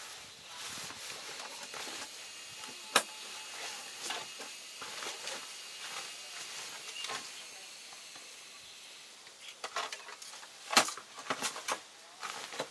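Fabric backpack being packed by hand: rustling over a steady hiss, a sharp click about three seconds in, then a run of clicks and knocks near the end as gear is pushed in and the pack is handled.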